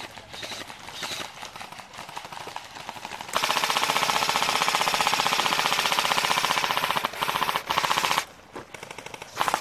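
Airsoft gun firing full-auto: a long rapid burst of about five seconds, broken by two brief pauses near the end of it, then a short burst just before the end. Quieter rattling shots are heard before it.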